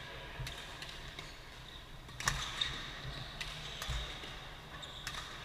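Badminton rally: sharp cracks of rackets striking a shuttlecock every second or so, the loudest a little over two seconds in, with low thuds of players' footwork on the court, in a large hall.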